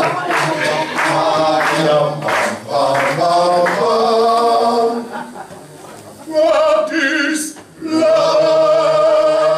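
A small group of men singing together in harmony without accompaniment, with long held notes; the singing drops away briefly about five seconds in, then returns with a long sustained chord near the end.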